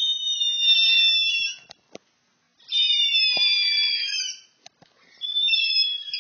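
Three long, shrill, very high-pitched screams, each lasting about a second and a half to two seconds with a short gap between, the pitch wavering slightly.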